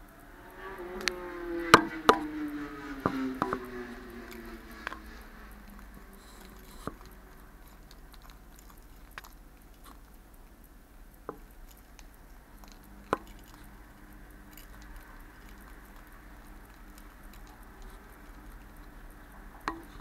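Sharp plastic clicks and knocks as a Jardine's parrot handles a hollow plastic rattle ball toy, clustered in the first few seconds and then only now and then. Early on, a low tone slides slowly downward under the clicks.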